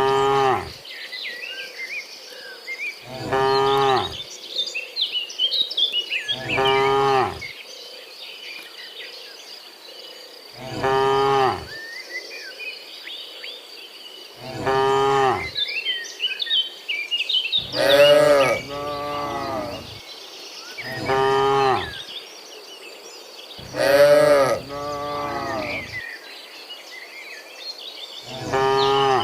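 Cattle mooing over and over, one drawn-out call every three or four seconds, with two cows calling almost together twice in the latter half.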